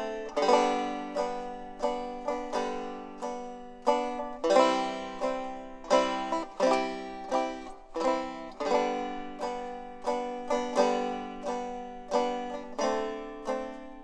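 Background music: a banjo picking a tune, a steady run of plucked notes that each ring and die away quickly.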